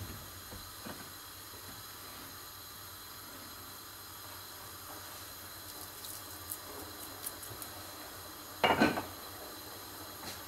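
Steady low hiss from a pot of meat and tomato sauce heating on a lit gas burner. A few faint ticks come about six to seven seconds in, and a single louder knock about nine seconds in.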